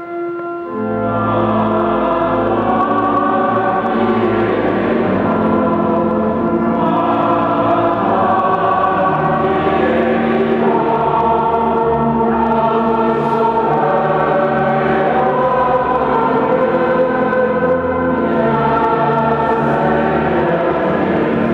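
Choir singing liturgical music at Mass, with long held low notes beneath, starting about a second in.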